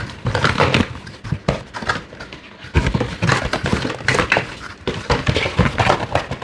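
Packaging being handled as items are taken out of a box: irregular rustles, taps and light knocks of plastic and cardboard.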